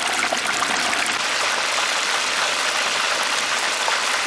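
Whole chicken deep-frying in a pan of hot oil: a steady sizzle with small crackles.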